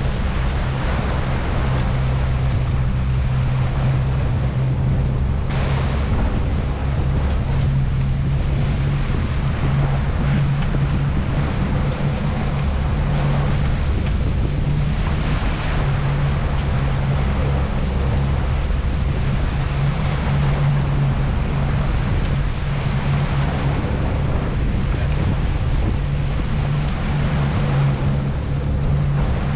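Outboard motor running steadily as the boat travels, a low engine hum under wind buffeting the microphone and the rush of water from the wake.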